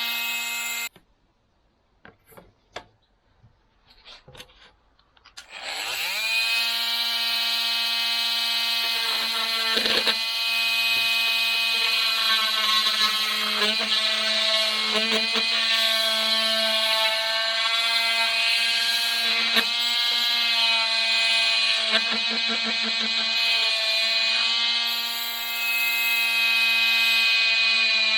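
Makita TM30D cordless oscillating multi-tool running with a steady pitch. It stops about a second in, leaving a few light clicks, then starts up again about six seconds in with a quick rise in pitch and runs steadily, with small changes as the blade meets the work.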